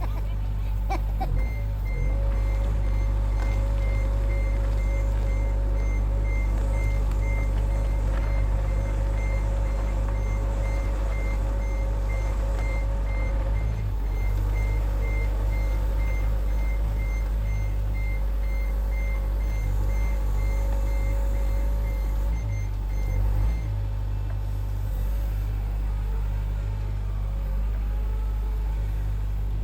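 John Deere 60G compact excavator's diesel engine running steadily, with a backup alarm beeping evenly over it for about twenty seconds. The beeping stops, then starts again at the very end.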